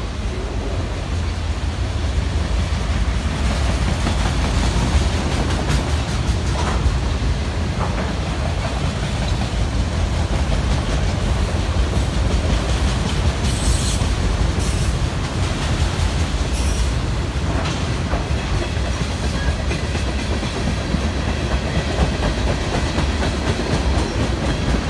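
Freight train of autorack and tank cars rolling past close by: a steady rumble of steel wheels on the rails, with a few brief sharp high sounds about halfway through.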